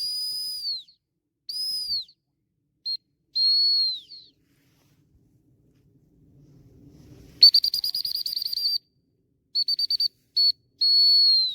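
A whistle blown in high, clear notes. Two held notes dip in pitch as they end, followed by a short pip and another falling note. About seven and a half seconds in comes a fast trill, then a few quick toots and a long note that drops away at the end.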